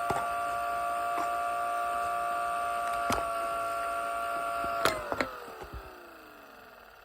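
Two electric sirens, the Modulator and the 500, sounding steady tones with a few knocks. About five seconds in a sharp clack cuts them off, and they wind down, their pitch sliding steadily lower as the sound fades.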